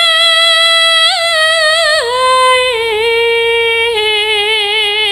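Sinden, a Javanese female singer, singing a slow, drawn-out line into a microphone: long held notes that step down in pitch twice, with a small ornament about a second in and vibrato on the lower notes.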